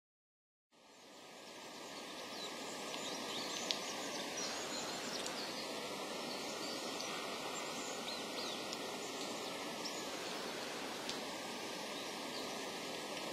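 Steady outdoor background hiss, starting after a moment of silence, with faint scattered bird chirps.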